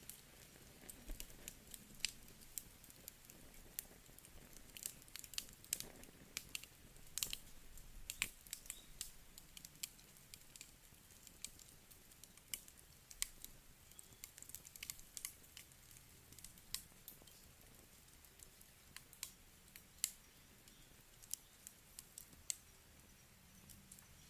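Wood campfire crackling: irregular sharp snaps and pops from the burning wood, coming thickest in the first eight seconds or so and sparser after, over a faint low hiss of the flames.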